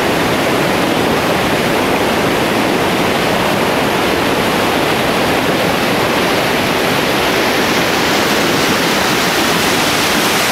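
Steady, loud rushing of whitewater pouring through a class 3–4 river rapid.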